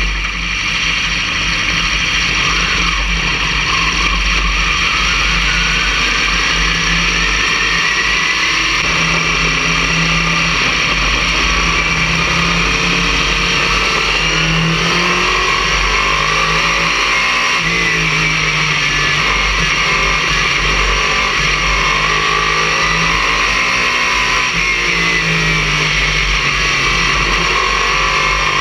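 Late model stock car's V8 engine heard from inside the cockpit, running at low speed, its pitch wavering up and down with the throttle, over a steady rush of noise.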